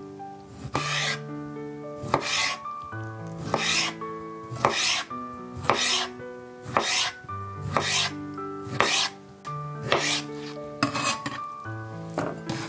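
A kitchen knife slicing through a boiled bamboo shoot down onto a cutting board, a rasping stroke about once a second, over background music.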